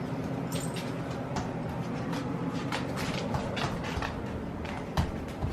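Scattered light clicks and taps over a steady low hum, with a sharper knock about five seconds in.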